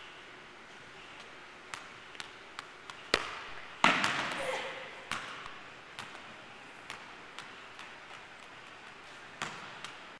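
Soccer ball being struck and bouncing on a hard gym floor: a run of light taps and several sharp thuds, the loudest about four seconds in, ringing on in the echoing hall.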